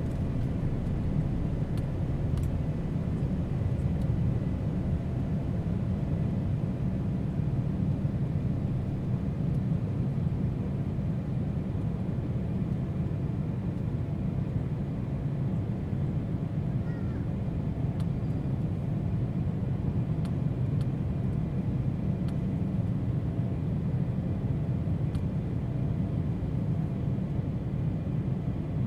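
Airliner cabin noise: a steady low rumble of the aircraft's engines and air systems, with a few faint clicks.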